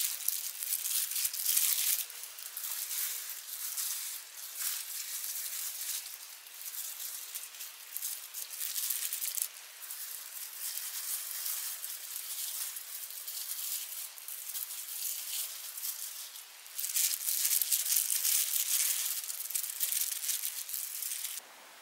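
Disposable plastic food gloves crinkling and rustling as hands handle and arrange kimchi, in uneven stretches. The loudest stretches are at the start and from about three-quarters of the way in, and the sound cuts off suddenly just before the end.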